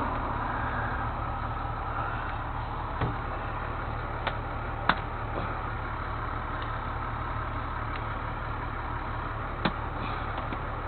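Truck engine running steadily at idle, with a few short, sharp knocks.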